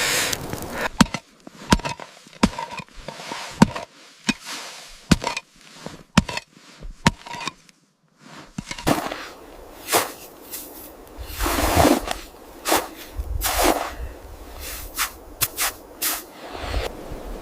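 Irregular sharp cracks and pops with quiet gaps between them. After a brief pause partway through, they come more densely over a steady rushing noise.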